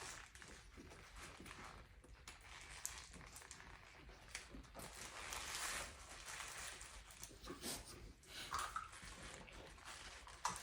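Quiet eating sounds: chewing on burgers and fries, with paper wrappers rustling and a few small clicks.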